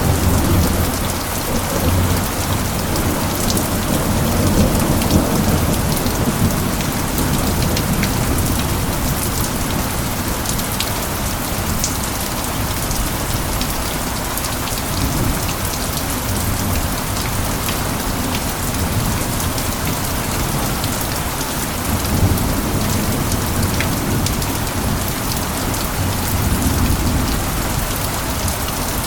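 Steady heavy rain falling, with low rolls of thunder swelling at the start, about five seconds in, and twice more near the end.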